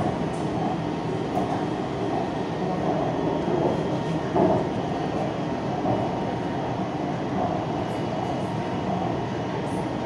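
BTS Skytrain car running along the elevated track, a steady running noise heard from inside the passenger cabin, with a brief louder swell about four and a half seconds in.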